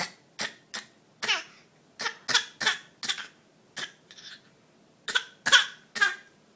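A baby's fake coughs: about a dozen short coughs in quick clusters of two or three, a baby imitating a cough.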